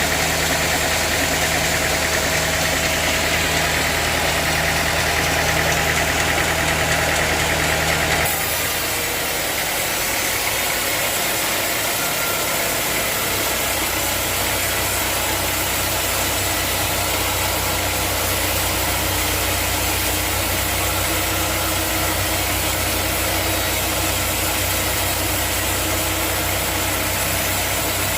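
Sawmill machinery running with a steady engine drone. About eight seconds in, its sound changes abruptly to a different, slightly quieter steady note.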